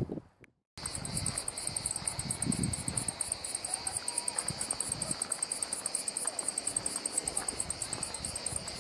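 Cicadas shrilling in the pine scrub: a steady, high-pitched, rapidly pulsing buzz that starts abruptly after a brief silence at the very beginning.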